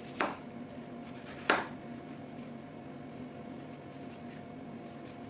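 Chef's knife cutting through the ends of an orange and knocking onto a bamboo cutting board: two sharp knocks about a second apart, the second louder. After that only faint scraping as the peel is cut away in the hand, over a low steady hum.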